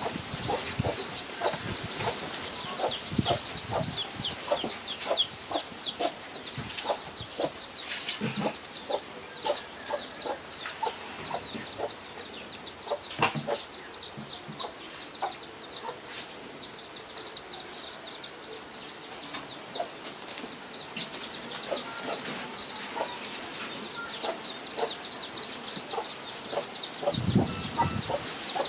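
Rapid, repeated high chirping from animals, with scattered clicks and knocks.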